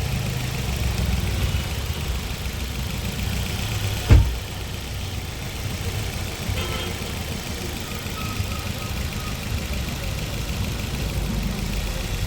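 Maruti Suzuki Ertiga four-cylinder petrol engine idling steadily, now running on all cylinders after its misfire was cured by a cylinder-head rebuild. A single sharp knock about four seconds in.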